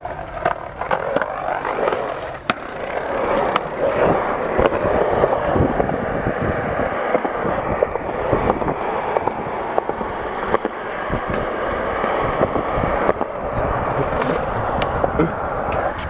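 Skateboard wheels rolling over a concrete skatepark surface, a steady rumble with a few sharp ticks scattered through it.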